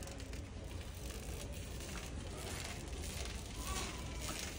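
Shopping cart being pushed through a store aisle: faint rustling and rattling over a steady low hum.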